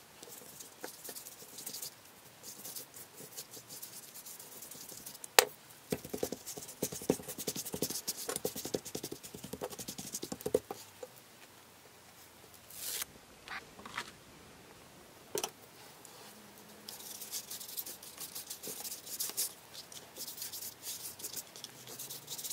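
Paintbrush and burlap dabbing and scrubbing a gesso and glaze medium mix onto paper album pages, giving a scratchy, rapid patter. A couple of sharp clicks come about five seconds in and again midway.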